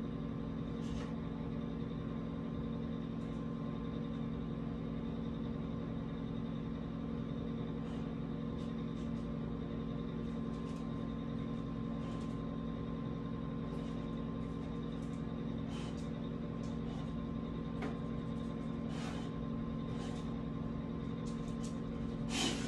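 Steady low mechanical hum with a few fixed tones in a small room. Over it come scattered brief soft noises from the dog at the other side of the closed door, the loudest near the end.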